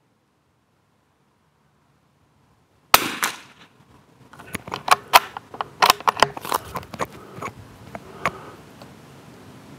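A single shot from a CZ BRNO Model 4 bolt-action .22 LR rifle firing Eley Match, a sharp crack about three seconds in. From about a second later, many irregular sharp ticks follow over a rising hiss.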